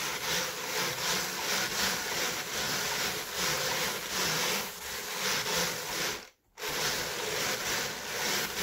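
Ashford drum carder running, its wire-toothed drums turning with a steady rasping whir and a gentle regular pulse as wool is drawn in. The sound cuts out for a moment about six seconds in.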